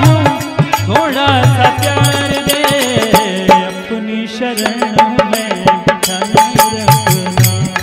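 Devotional bhajan music: a man's singing melody with drum accompaniment. About three seconds in, one note is held steady for several seconds while the drum strokes go on.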